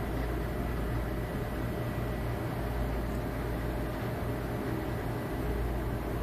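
Steady low hum and hiss of a running machine, with a thin high whine over it.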